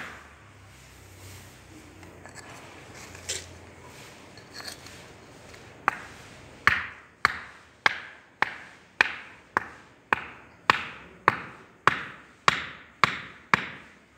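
A wooden mallet rapping the wooden riser and sprue pins in a rammed sand mould, loosening them so they can be drawn out. There is one sharp knock at the start, a pause with a couple of faint taps, then a steady run of about fourteen short, ringing knocks, a little under two a second, from about six seconds in.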